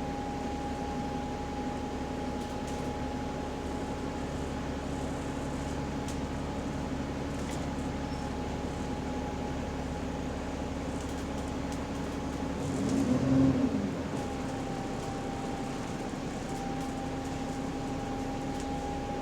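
Bus running with a steady, subtle whine that reads as a weird differential noise, carried over the engine and road rumble inside the cabin. About 13 seconds in there is a brief louder swell that rises and falls in pitch, after which the whine dips slightly and then carries on.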